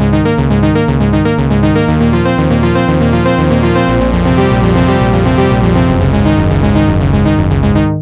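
Waldorf M wavetable synthesizer playing its 'Ana Filter Bass' arpeggiator preset: a fast, pulsing arpeggiated synth bass line through an analog filter. It stops abruptly at the very end.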